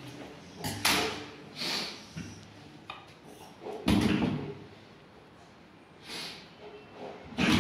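Several separate short knocks and rustles of handling at a grooming table, the loudest about four seconds in and another near the end.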